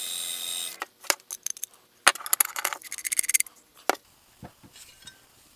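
Small bench grinder grinding the end of a metal rod spun in a cordless drill, a steady whine that stops about a second in. Then a run of light metallic clinks and rattles as small metal parts are handled, loudest a couple of seconds later.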